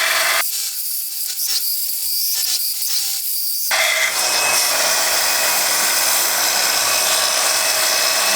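A power tool grinding and cutting steel plate with an abrasive disc, a loud steady hiss. About half a second in the lower part of the sound drops away for about three seconds, leaving a thinner, higher sound, before the full noise returns.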